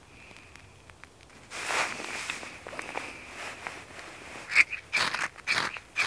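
Handful of dry grass tinder rustling and crackling as it is worked and crumpled between the hands: a soft rustle about two seconds in, then quick sharp crunchy crackles in the last second and a half.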